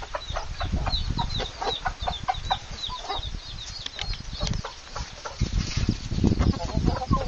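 Chickens clucking, with many short, high chirps mixed in throughout.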